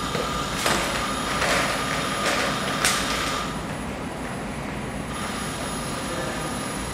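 Industrial robot arm's drives and motors running with a steady hum, with four short louder whirring swells in the first three seconds as the arm lowers. The sound grows quieter from about three and a half seconds in, as the arm halts on contact through collision detection from its joint torques.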